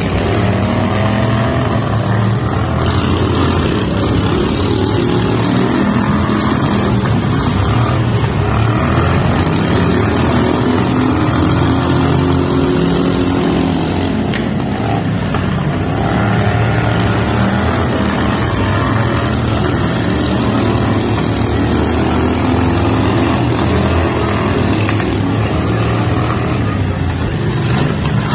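Several lawn tractor engines running at once, revving up and down in overlapping pitches as the tractors drive and jostle.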